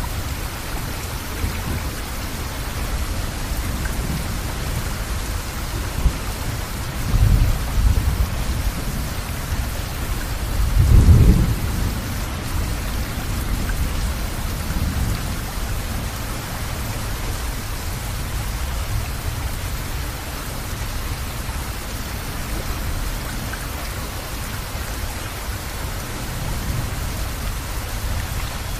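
Steady rain, with two low rolls of thunder: a shorter rumble about seven seconds in and a louder one about eleven seconds in.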